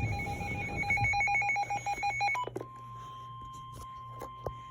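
Electronic alert beeping that pulses rapidly and stops about two and a half seconds in. It gives way to NOAA Weather Radio's steady single-pitch warning alarm tone, which signals that a warning message is about to be read.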